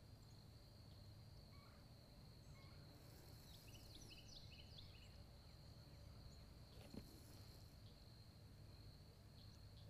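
Near silence: faint lakeshore ambience with a steady high-pitched insect trill and a few short bird chirps about three to four seconds in. There is a single faint knock about seven seconds in.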